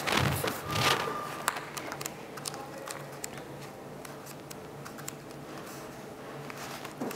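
Soft paper rustles and small clicks as the pages of a book are leafed through, with a louder burst of handling noise in the first second.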